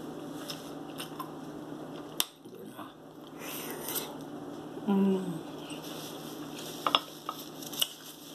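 Eating and handling noises at a table: a few sharp clicks and taps over a low room hum, with a short hummed voice sound about five seconds in.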